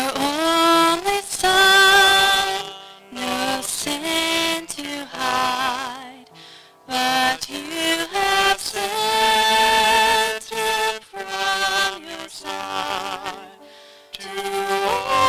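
A man singing a slow hymn with vibrato, in phrases with short pauses between, over piano accompaniment.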